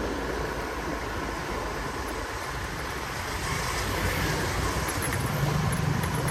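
Steady road and wind noise from riding a motorbike along a city street with traffic, growing a little louder past the middle, with a low engine hum near the end.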